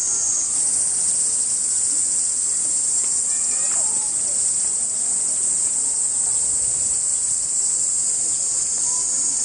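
A steady chorus of insects shrilling continuously, high-pitched and unbroken, with faint distant voices underneath.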